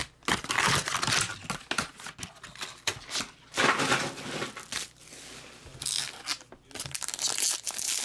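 Crinkling of plastic wrap and a foil trading-card pack being handled and torn open, in irregular bursts with a quieter pause partway through.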